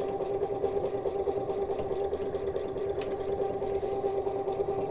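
Janome electric sewing machine running steadily while sewing a decorative stitch: an even motor hum with fast, regular needle ticking.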